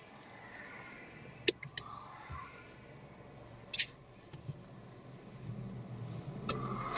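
Quiet inside of a stopped car with a low steady hum, broken by a few short sharp clicks and handling noises: a cluster about a second and a half in, one near four seconds, and one shortly before the end.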